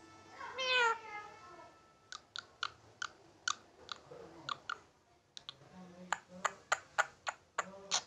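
Indian ringneck parakeet gives one short cat-like meow about half a second in, then a run of sharp clicks from its beak, a few a second and coming faster near the end.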